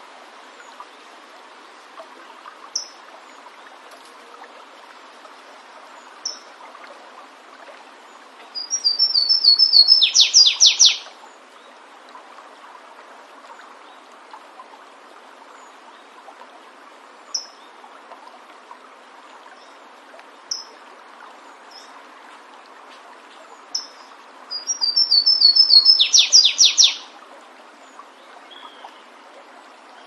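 Flavescent warbler (canário-do-mato, Myiothlypis flaveola) singing twice, about fifteen seconds apart. Each song is a run of high notes that swells and speeds up into a loud burst of rapid strokes. A few single short chips come between the songs, over the steady rush of a stream.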